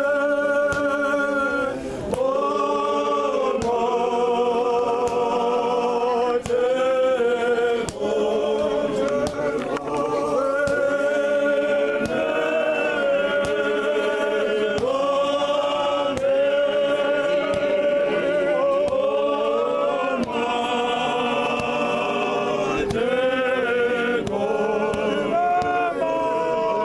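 Choir of voices singing a cappella in harmony, in phrases of long held notes.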